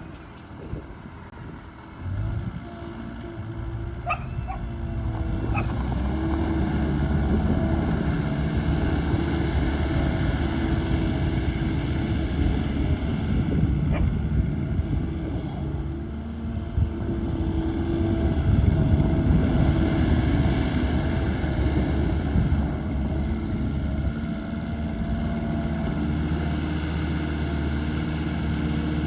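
2011 New Holland L215 skid steer's diesel engine starting about two seconds in, then running with its note rising and falling at times. A few brief high chirps are heard around the start.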